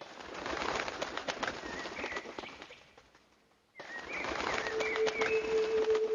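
Bird sounds: short chirping calls over a busy patter of clicks, fading away a little past halfway and starting again abruptly, as in an edited sound-effect track. A steady held tone comes in near the end.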